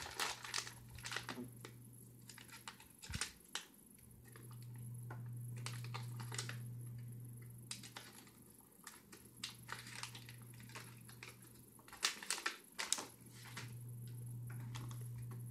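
Plastic packet of dried mangoes crinkling and rustling in the hands as it is opened and passed around, with many small irregular crackles and clicks. A low hum swells up and fades twice beneath it.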